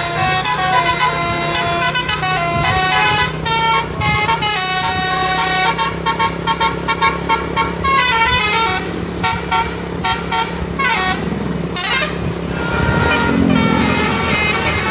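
Tour bus's 'telolet basuri' musical air horn playing a quick melody of stepping notes, with a stretch of rapid staccato notes and a few rising and falling siren-like sweeps about two-thirds of the way in. A steady engine hum runs underneath.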